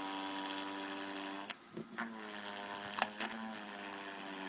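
Small 12 V DC motor with a screw bit on its shaft, running with a steady electric whine while its tip engraves into a plate. Twice, about a second and a half in and again about three seconds in, the pitch dips briefly with a short scrape as the bit bites into the material.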